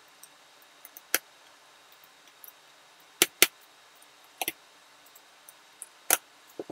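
Scattered sharp clicks and taps of a small screwdriver working the screws of a graphics card's cooler and backplate as they are tightened, about six in all, the loudest a pair a little after three seconds in.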